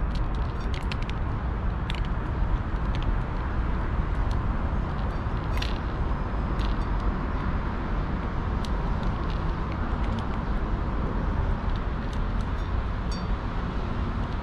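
A cat eating wet food from a metal dish: scattered sharp clicks of chewing and lapping every second or two, over a steady low rumble of city traffic.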